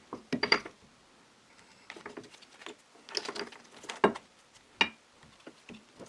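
Irregular light clicks and knocks as the metal chisel holder of a drill-press mortising attachment and its thin adapter ring are handled and tried on the drill press. The holder fits loosely even with the thinnest ring.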